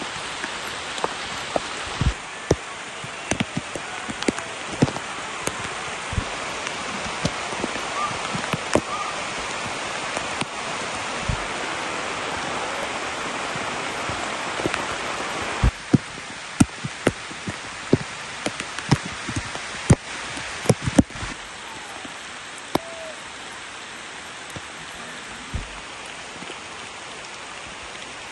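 Rain falling steadily on a camping tarp, a constant hiss with sharp hits of single large drops striking the fabric. About halfway through the hiss eases and a run of louder drop hits stands out for a few seconds before it settles to softer rain.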